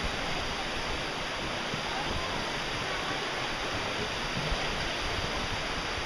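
Steady rush of a rocky creek's water tumbling over small cascades.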